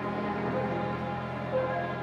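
Acoustic hymn music, with several notes held together and changing slowly.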